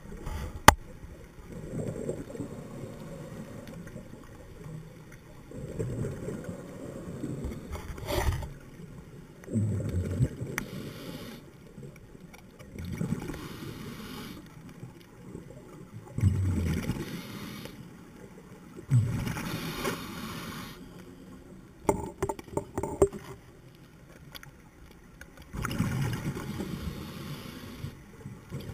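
Scuba diver breathing through a regulator underwater: exhaled bubbles gurgle out about every three and a half seconds, with a shorter hiss of inhalation between them. A sharp knock sounds just under a second in.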